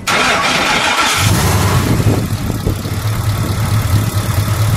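A Roush-supercharged Ford Coyote V8 starts up, catching at once with a sudden loud burst. About a second in it settles into a steady idle.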